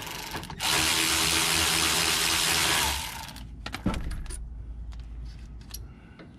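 Cordless ratchet whirring for about two and a half seconds as it spins out a rear brake caliper bolt, then a single sharp metallic knock about a second later.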